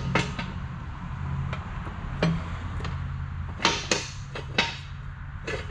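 Scattered sharp metal clicks and knocks, about seven in all with two close together past the middle, as a floor jack and jack stand are set under a transmission's tail shaft, over a steady low hum.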